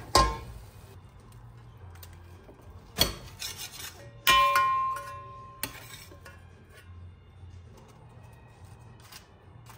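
A slotted metal spatula knocking and scraping against black enamelware baking pans. A sharp clank about four seconds in leaves the pan ringing for about a second, with quieter scraping between the knocks.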